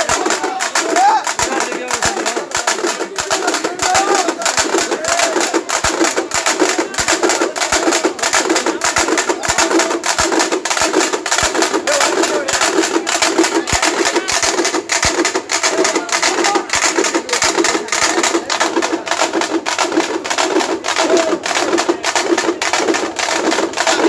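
Festival drumming: frame drums (dappu) beaten in a fast, steady rhythm. A wavering melodic line sounds over them near the start.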